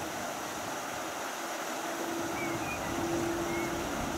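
Airbus A330 jet engines idling while the airliner taxis: a steady rush with a low hum that strengthens about two seconds in.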